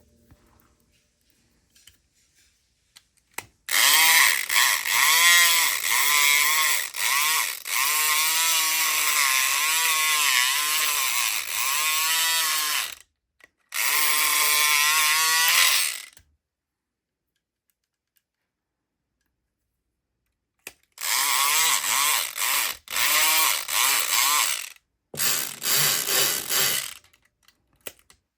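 SouthOrd E500XT 4.5-volt electric lock pick gun buzzing as its trigger is pulled, the vibrating pick needle working a padlock's pins. The motor's pitch wavers up and down under load. A long run of about ten seconds and a shorter one follow each other, then after a pause several short bursts come near the end.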